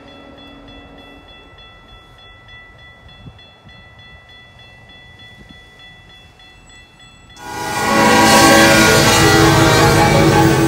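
Level-crossing warning bell ringing, faint and steady. About seven and a half seconds in, loud music starts and drowns it out.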